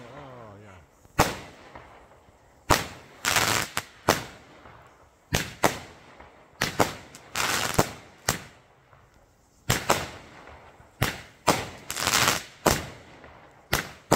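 Multi-shot firework going off: a string of sharp bangs at irregular intervals, some in quick pairs, several followed by a short burst of crackling as the stars break in the air.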